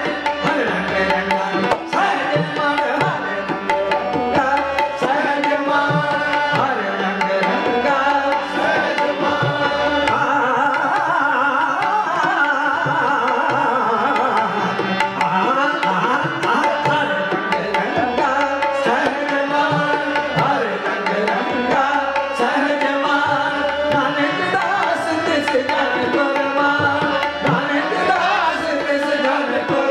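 Sikh devotional kirtan: voices singing a Gurbani hymn over a steady tabla rhythm, continuing without a break.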